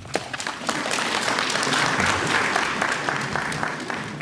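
Audience applauding, many hands clapping in a hall; the clapping swells in the first two seconds and fades toward the end.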